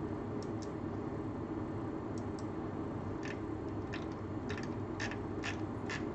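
Scattered light clicks from a computer keyboard and mouse in use, about ten in all, some in quick pairs. Under them runs a steady low hum of room tone.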